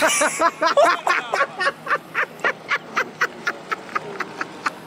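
A person laughing hard: a long run of short rhythmic 'ha' bursts, about three to four a second, slowly fading.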